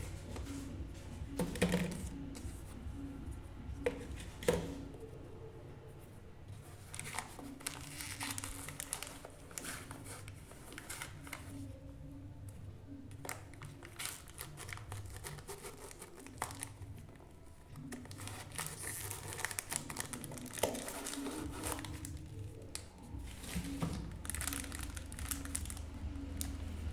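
Packaging being unwrapped by hand: irregular crinkling, rustling and tearing, with scattered sharp clicks and handling knocks.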